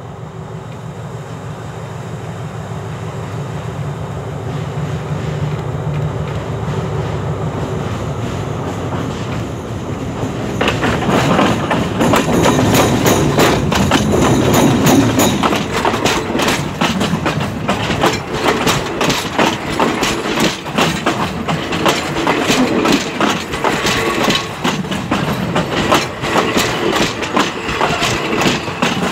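Diesel train hauled by the MTU-engined locomotive ALS 4153 coming in and passing right over the microphone: a low engine drone slowly grows louder for about ten seconds, then suddenly gives way to loud, fast clicking and rattling of wheels and undercarriage running overhead as the train rolls by.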